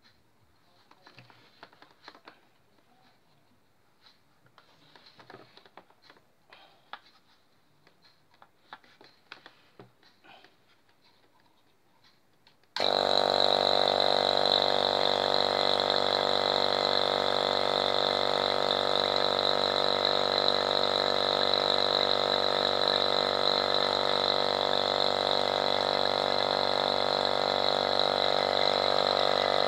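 Faint handling clicks, then about halfway through an electric DVM 1/5 HP rotary-vane vacuum pump for air-conditioning work switches on and runs steadily with an even drone and a high whine, on its test run after an oil change.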